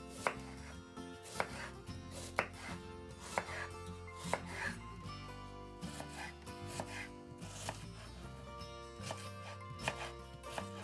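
Chef's knife cutting an onion on a bamboo cutting board: sharp knocks of the blade on the wood, about one a second at first, then a looser run of lighter cuts.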